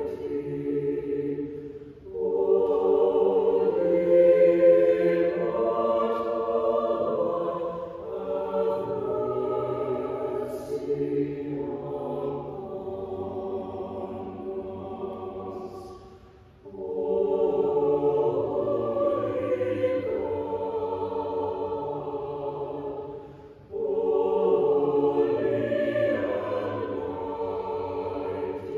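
Mixed church choir of men's and women's voices singing slow sustained chords in parts, in long phrases with brief pauses about 2, 16 and 24 seconds in.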